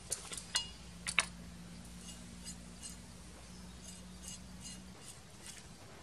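Metal kitchen tongs and a steel cleaver clinking as they are set down and picked up on a wooden board. A few sharp clinks with a brief ring in the first second or so, then lighter ticks.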